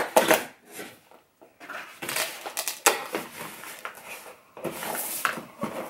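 Hands opening and unfolding a small cardboard toy box: an irregular run of sharp clicks, taps and scraping rustles of cardboard and plastic packaging.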